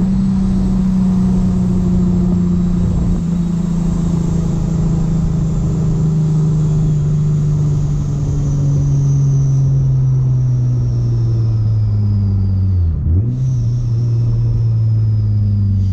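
Supercharged Infiniti G35's V6 running under the Vortech supercharger's high whine, both falling slowly and steadily in pitch as engine speed drops. About thirteen seconds in there is a brief break, after which the engine note and the whine jump back up, as with a downshift.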